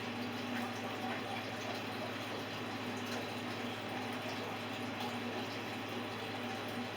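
Steady background hiss with a low hum and no distinct sounds: room noise.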